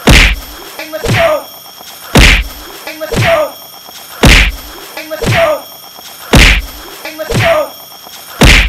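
Comedy fight sound effect on a loop: five loud whacks, one about every two seconds. About a second after each comes a smaller hit with a short falling cry.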